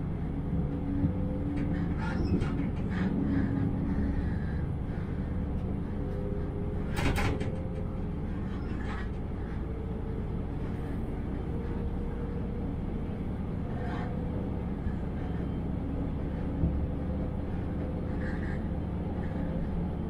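Diesel railcar running along single track, heard from the driver's cab: a steady engine drone over rolling wheel-on-rail rumble. A few sharp knocks and clatters from the running gear, the loudest about 7 seconds in.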